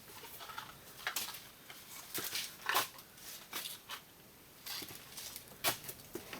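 Scattered light clicks and rustles, as a pack of small metal screws is picked up and handled.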